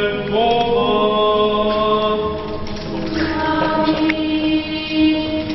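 Orthodox liturgical chant: the priest intones the last word of a blessing, and a church choir then sings long, held notes.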